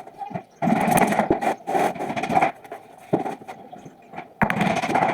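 Wood being scraped by a hand tool in a long stretch of rasping strokes, a pause with a few sharp knocks, then another short stretch of scraping near the end.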